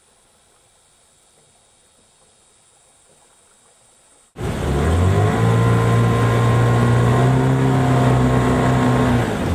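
Faint hiss for the first four seconds, then a boat's motor running steadily at speed. The engine eases off near the end.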